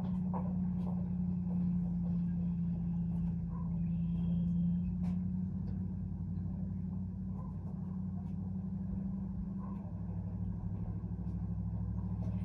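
A steady low motor hum, like an engine running at idle, its tone shifting slightly partway through, with a few faint clicks over it.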